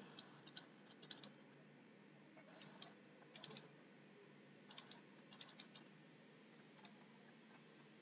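Faint clicks and taps of a digital pen on a tablet while handwriting, in small clusters of a few at a time.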